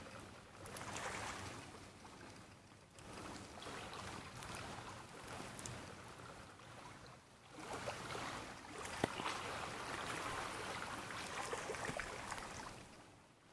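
Lake waves washing against a stony shore, a steady rush that swells and fades over several seconds, with a few sharp clicks.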